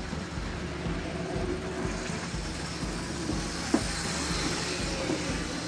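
Bachmann HO scale model diesel locomotive running on the layout track, a steady whir of its motor and wheels as it pulls a train of freight cars, with one sharp click nearly four seconds in.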